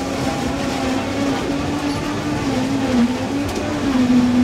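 A motor running steadily, its hum drifting slightly up and down in pitch, over constant street background noise.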